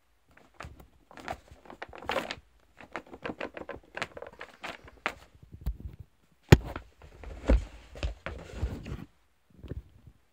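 A small cardboard gift box being handled and opened: the lid scraping and paper rustling in irregular bursts, with two louder knocks past the middle.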